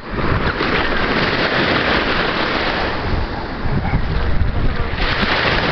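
Small sea waves washing over a pebble shore, a steady rushing hiss, with wind rumbling on the microphone.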